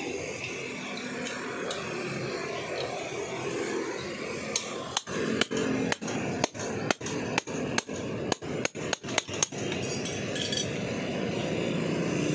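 A run of about fifteen sharp metallic clicks over some five seconds, coming faster toward the end, from a wrench working on a scooter's rear axle as the rear wheel is taken off for a tyre change. Steady street noise runs underneath.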